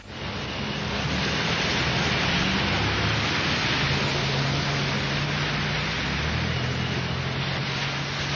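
Steady hiss of rain on a wet city street, with the low hum of car engines in the traffic beneath it.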